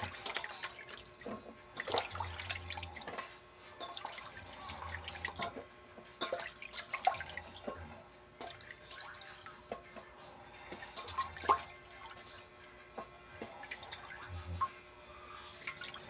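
Hand swishing sliced bitter gourd, eggplant and green peppers in a pot of water and scooping them out, with irregular splashes and drips.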